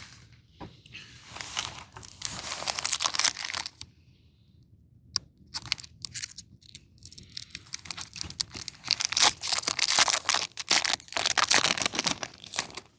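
Pokémon booster pack's foil wrapper crinkling and being torn open, in two stretches of crackling with a short lull about four seconds in.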